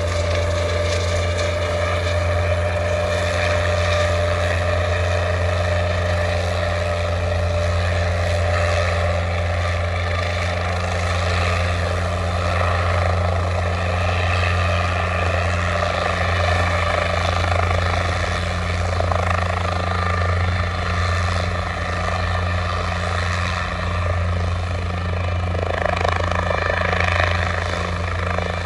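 Guimbal Cabri G2 light helicopter hovering low and manoeuvring to land, its main rotor and four-cylinder piston engine running steadily as a continuous low rotor beat with rushing rotor-wash noise.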